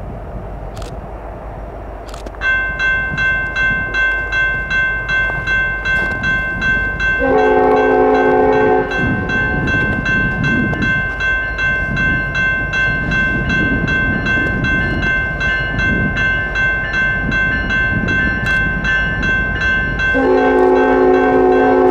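A railroad grade-crossing bell starts ringing about two seconds in, about two strikes a second, and keeps on. A locomotive horn sounds a short blast around seven seconds in and a longer one near the end, with the rumble of the train between them.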